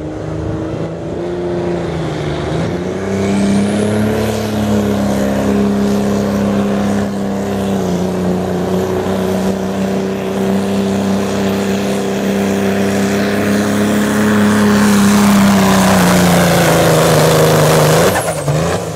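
Dodge Ram diesel pickup pulling a sled at full throttle: the engine revs up over the first few seconds with a rising turbo whistle, holds high steady revs through the pull, then falls off suddenly near the end as the throttle is let off.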